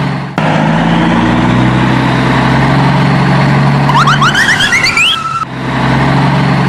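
Motor vehicle engine running at a steady hum, broken off sharply twice by edits. About four seconds in comes a quick run of rising whoops, like a siren or alarm.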